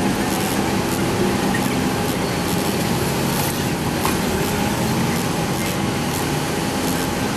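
Steady running of a heavy vehicle engine with a constant hum, mixed with road traffic noise.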